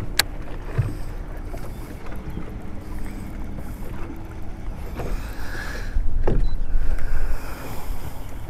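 Wind-driven waves slapping against a fishing boat's hull, with wind on the microphone. A steady hum runs through the first half, and there are a sharp click near the start and a few knocks later on.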